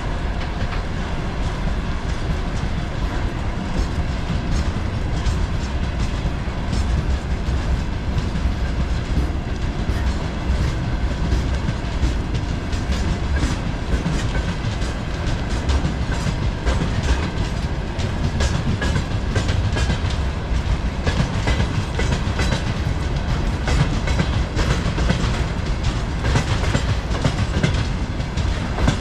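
Freight train wagons rolling past, a continuous rumble with steady clickety-clack of wheels crossing rail joints.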